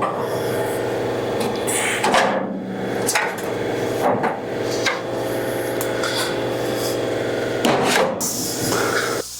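Angle grinder running steadily, grinding old spot welds off the steel truck bedside, and cutting off near the end.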